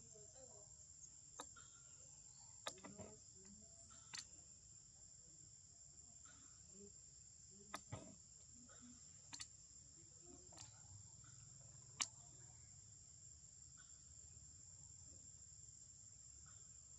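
Faint, steady, high-pitched drone of insects in the forest, with a few sharp clicks scattered through it.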